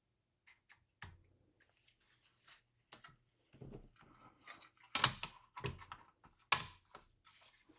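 Clicks and light knocks of a mini PC's cover plate and case lid being handled, set in place and pressed down, with two louder knocks in the second half.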